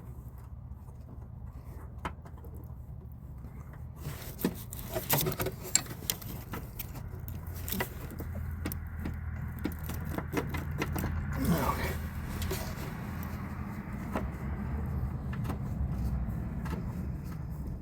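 Metal clinking, knocking and scraping of hand tools and engine-mount parts being worked on under the hood, over a steady low hum.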